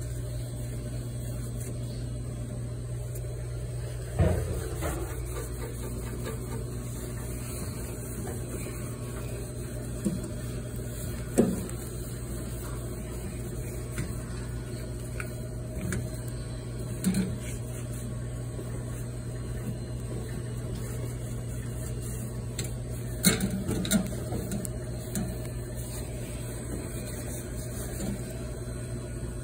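A steady low machine hum, with a few scattered short knocks as stainless steel kitchen surfaces are wiped down with a cloth.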